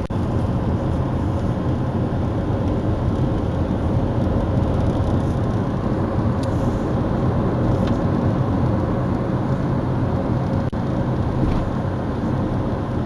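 A moving car heard from inside its cabin: a steady low rumble of road and engine noise.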